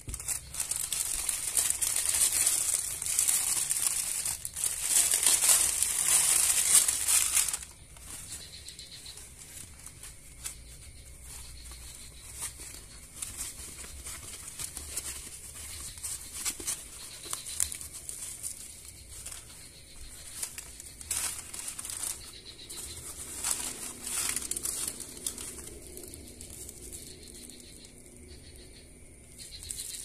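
Plastic packaging being torn open and handled. There are about seven seconds of loud crinkling and tearing of a plastic courier mailer, then quieter rustling as a foam sheet wrap and a clear plastic bag around a small speaker driver are unwrapped.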